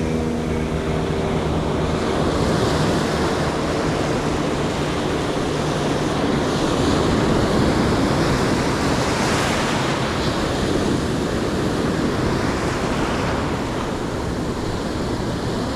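Ocean surf breaking and washing up the beach, swelling louder near the middle, with wind buffeting the microphone.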